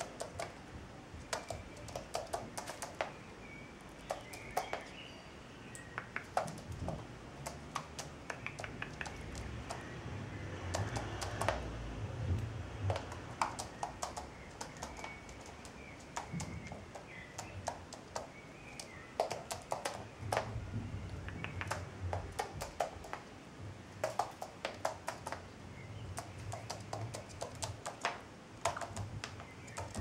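Common wood pigeon's claws clicking and tapping irregularly on a laminate floor as it walks and pecks at crumbs. A low rumble comes and goes behind it.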